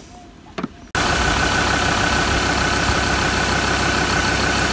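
Mazda ute's engine idling steadily with a constant high whine on top, running again after its flat battery was recharged. It cuts in suddenly about a second in, after a quiet moment with a faint click.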